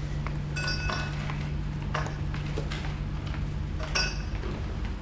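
Three light clinks like glass or tableware, about half a second, two seconds and four seconds in, the first and last ringing briefly. A steady low hum of room noise runs beneath them.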